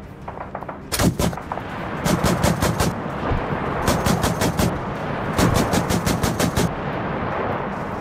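Four bursts of rapid automatic gunfire, roughly eight shots a second: a short burst about a second in, then three longer ones, over a steady rumble.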